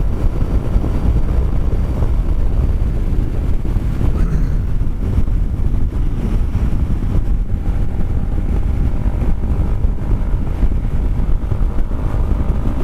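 Wind rumbling over the microphone as a Kymco Xciting 400i maxi-scooter rides at highway speed, with its single-cylinder engine running underneath. A faint steady engine tone comes through more clearly in the second half.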